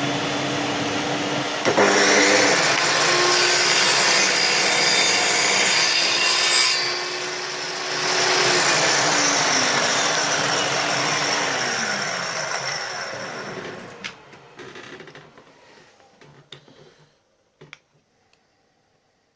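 Homemade portable table saw's motor running up to speed and its blade cutting through a workpiece. The loud cutting noise lasts about ten seconds with a short dip partway through, then the motor winds down and stops about fourteen seconds in. A few clicks and knocks from handling the piece follow.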